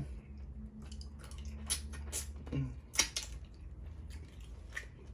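Close-up mouth sounds of someone eating Dungeness crab in butter sauce: wet chewing with irregular smacking clicks, and a short hummed 'mm' about two and a half seconds in.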